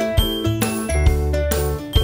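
Background music: a steady beat about once a second, with pitched notes and high ringing tones over it.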